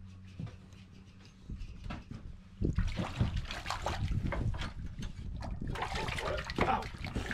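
A whitefish splashing and thrashing in the water of an ice-fishing hole as it is pulled up and grabbed by hand. The splashing starts about two and a half seconds in and gets busier toward the end.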